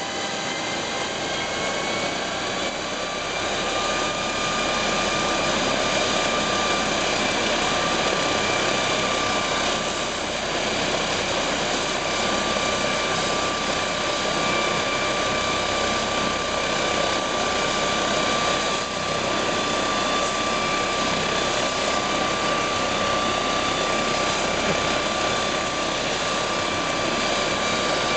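MD902 Explorer NOTAR helicopter's twin turboshaft engines running on the ground, a loud whine rising in pitch over the first few seconds and then holding steady.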